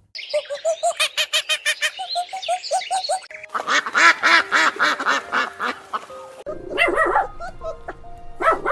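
Geese or ducks calling: rapid runs of repeated calls at first, then a dense chorus of many birds calling over each other, then scattered calls near the end.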